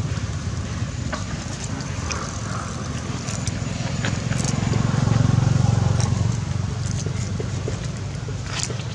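A motor engine running steadily with a low hum that grows louder about five seconds in, with scattered small clicks on top.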